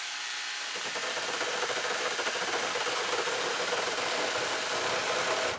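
Cordless angle grinder fitted with a chainsaw bar-and-chain attachment, its chain cutting through a 2x4 under the tool's own weight with a steady whine and chatter of chain on wood. The sound cuts off suddenly at the end.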